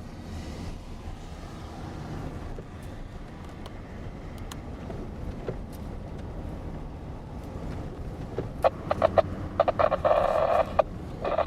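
Steady low engine and road rumble heard from inside a moving vehicle's cab. Near the end come a few short clicks, then a crackly radio transmission over the scanner.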